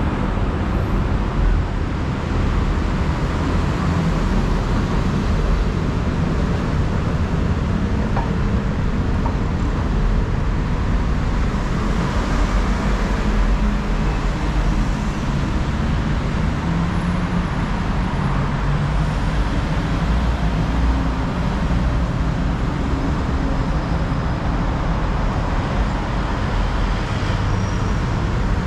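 Steady road traffic noise: a continuous low rumble of vehicles with no distinct single events.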